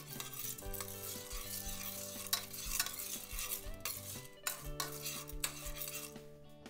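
A metal spoon stirs dry popcorn kernels coated in olive oil around an unheated stainless steel pot. The kernels rattle and the spoon scrapes irregularly across the metal bottom.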